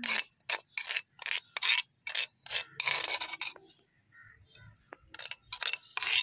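Quick rhythmic scraping strokes, about three a second, with one longer stroke near the middle, a short pause, then more strokes near the end.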